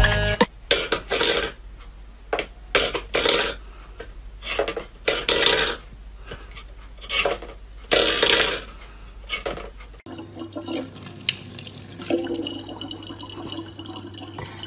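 Steel pet bowls knocked and scraped on a wooden floor in a string of short bursts. About ten seconds in, this gives way to a kitchen tap running in a thin, steady stream into a plastic bottle.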